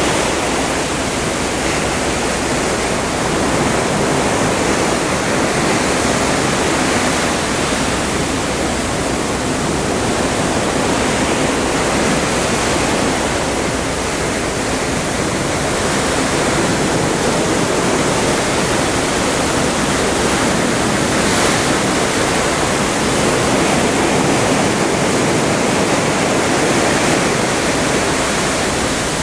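Open Atlantic Ocean water rushing along the side of a moving ship: a steady, loud rush that swells and eases slowly, with no distinct waves breaking.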